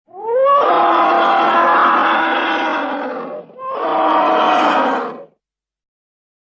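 Creature roar sound effect for an elephant-like monster: a long roar rising in pitch at its start, then a second, shorter roar right after it.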